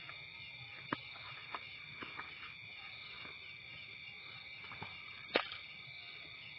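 Night insect chorus: a steady, high-pitched chirring in several pitches. A few sharp clicks or knocks cut through it, the loudest about five seconds in.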